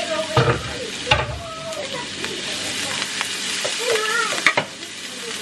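Diced onions sizzling in olive oil in a pan while a spatula stirs them, with a couple of knocks of the spatula against the pan in the first second or so.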